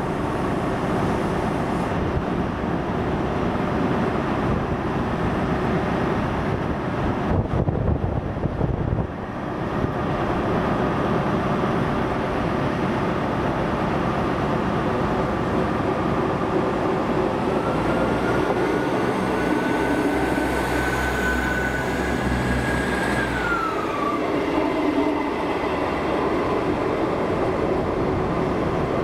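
Diesel trains running at a station, a steady low engine rumble throughout. A whine rises around the middle and falls away a few seconds later. Near the end a ScotRail Class 158 diesel multiple unit is moving on the tracks beside the platform.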